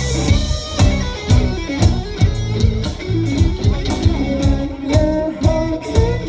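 Live rock band playing: electric guitars over a steady drumbeat of about two hits a second, at loud concert volume, heard from the crowd.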